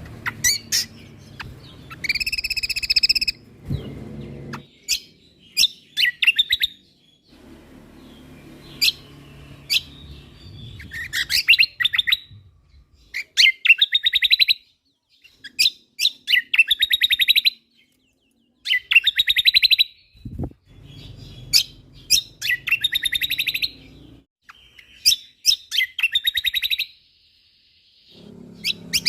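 Cucak kombo (kecial kombok Lombok) singing: repeated short phrases of rapid chirping trills and sharp notes, each about a second long, with brief pauses between, over a faint low hum at times.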